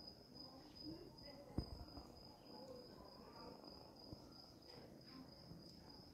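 Near silence, with a faint, steady high-pitched insect trill and a single soft tap about a second and a half in.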